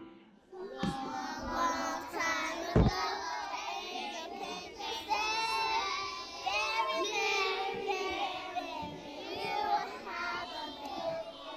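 A group of young children singing together, starting about a second in. A single sharp knock sounds near three seconds in and is the loudest moment.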